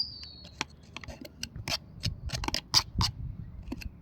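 Irregular clicks, knocks and scrapes of a Bosch chainsaw's guide bar, chain and tensioner parts being handled and fitted back onto the saw body, loudest a little before three seconds in.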